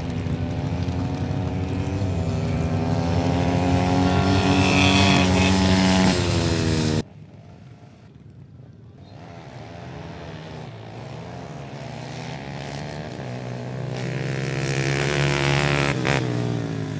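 ATV engines revving hard as quads accelerate off the line in a dirt drag race, pitch climbing steadily. The sound cuts off abruptly about seven seconds in, and another quad engine, fainter at first, rises in pitch again until it cuts off just before the end.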